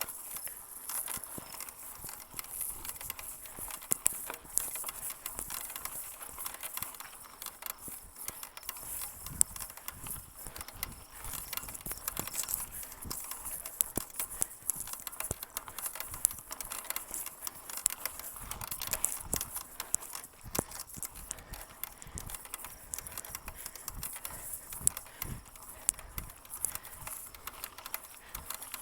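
Bicycle creaking, a continuous run of irregular clicks and creaks.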